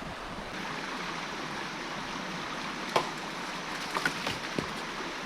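Steady rushing of a running stream, with a few sharp knocks about three seconds in and again around four seconds.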